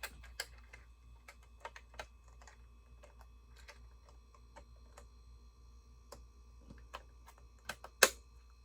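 Plastic Lego pieces being handled and fitted: scattered light clicks and taps, with a few sharper clicks near the end as pieces are pressed into place.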